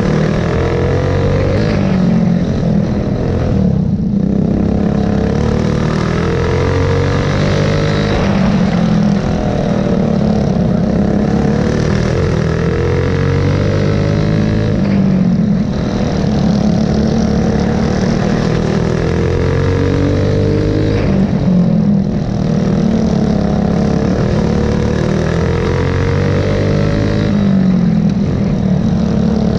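Go-kart engine at full throttle heard from on board, its pitch climbing and then falling away in a repeating cycle about every six seconds as the kart goes down the straights and into the turns.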